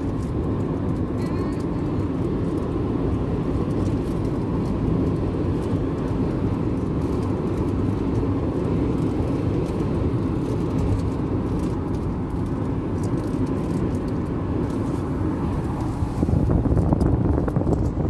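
Steady road and engine noise of a car driving at highway speed, heard from inside the cabin. It gets louder near the end.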